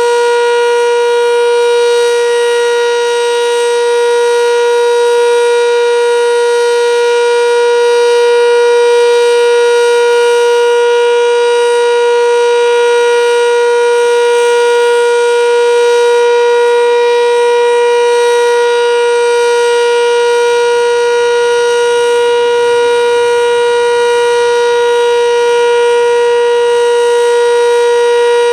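Sentry 7V8-B outdoor warning siren sounding a loud, steady single tone at full pitch: the Alert signal of a storm-siren test.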